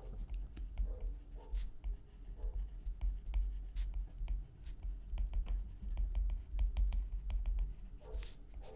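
Stylus tapping and scratching on a tablet's glass screen while words are handwritten: a scattered run of light clicks over a low rumble.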